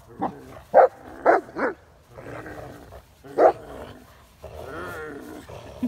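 Bernese mountain dog barking in play during tug-of-war: four short barks in the first second and a half and another about three and a half seconds in, with softer growling between them.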